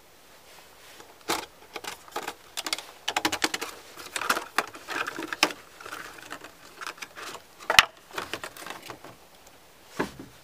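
A product box of cardboard and clear plastic being opened by hand, with a busy run of quick clicks, taps and crinkles as the flap and plastic insert are pulled apart. There is one sharp snap about two-thirds of the way through. Near the end comes a knock as the lantern is set down on the wooden bench.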